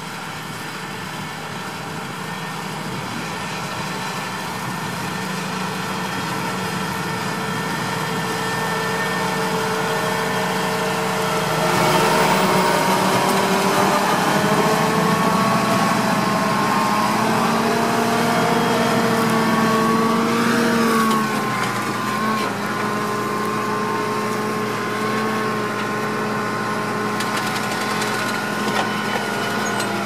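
John Deere 7260R tractor's six-cylinder diesel running steadily under load while pulling a seven-furrow on-land plough. It grows louder as the tractor approaches and passes, and the engine note drops slightly a little past two-thirds of the way through.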